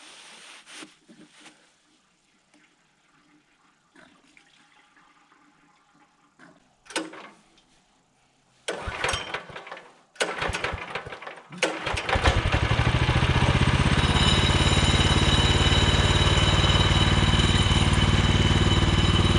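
The gas engine of a Woodland Mills HM126 portable bandsaw sawmill being pull-started again after running out of fuel and being refuelled. After faint handling noises, the recoil starter is pulled twice, and about twelve seconds in the engine catches and settles into a steady, loud run.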